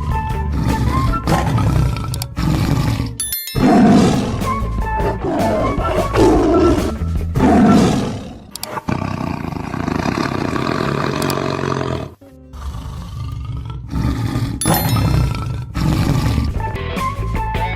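Music mixed with deep animal roars, edited into short pieces with abrupt cuts between them.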